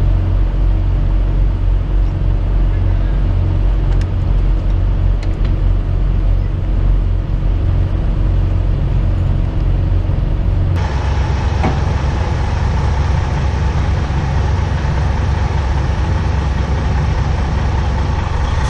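Semi truck's diesel engine running steadily at low speed while the truck is backed into a spot. About eleven seconds in the sound changes abruptly and a steadier, higher hum joins the low rumble.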